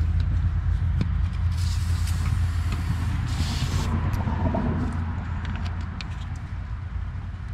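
Two short hisses of an aerosol spray can, about one and a half and three and a half seconds in, as liquid is sprayed onto the rubber exhaust hanger to work it loose, over a low steady rumble that fades a little toward the end.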